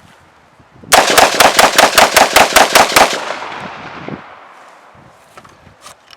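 Helanbak HP15 AR-15 rifle in 5.56 firing eleven shots in quick succession, about five a second, with an echo dying away after the last. The sand-fouled rifle cycles every round without a malfunction.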